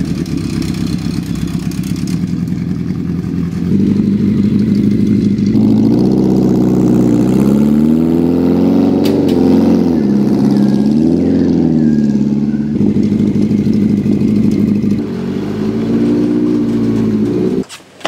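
Honda CB750 cafe racer's air-cooled inline-four running through its baffled exhaust, the baffles wrapped in fiberglass with mufflers fitted: a steady idle at first, then revving as it rides, the pitch rising and falling several times, before it cuts off just before the end.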